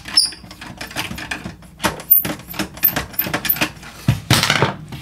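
Metal screwdriver shaft clicking, tapping and scraping inside the deep plastic screw well in the back of a boombox case, a rapid irregular run of small clicks with a few light metallic tinks and a short rasp about four seconds in. The tool is bottoming out on the narrowing collar of the well before it reaches the screw.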